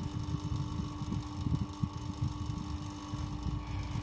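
A steady mechanical hum with a constant low tone, over an uneven low rumble.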